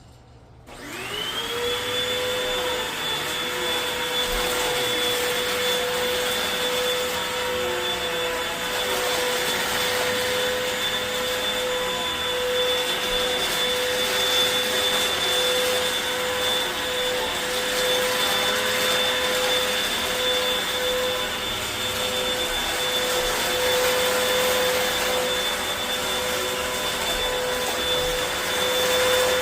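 Hoover WindTunnel T-Series Rewind upright vacuum cleaner switched on about half a second in, its motor whine rising quickly to full speed. It then runs steadily with a high whine over rushing air while it vacuums up shredded paper.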